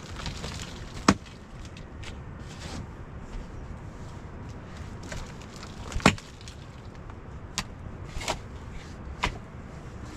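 Several sharp, short knocks at irregular intervals, the loudest about a second in and about six seconds in, over a steady low background rumble.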